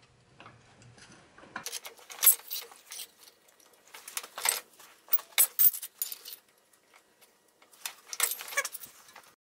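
Hand-lever bench shear cutting sheet steel: three bursts of sharp metallic clicks and clanks as the lever is worked and the blade goes through the plate.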